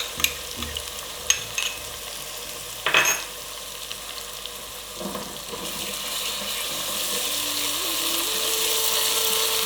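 Ginger garlic paste frying in hot oil with the onion-tomato masala and being stirred: a few light clicks and a knock near the start, then a sizzle that grows steadily louder.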